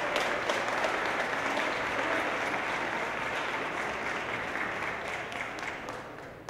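Audience applauding: dense, steady clapping that gradually dies away over the last couple of seconds.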